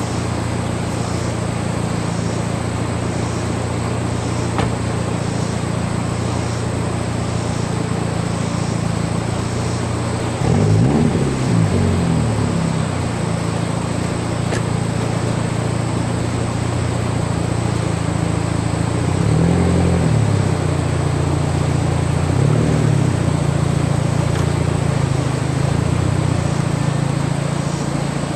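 Volkswagen Passat engine idling, revved up and back down three times through its newly reconnected gas pedal: once about ten seconds in, then twice in quick succession around twenty seconds in.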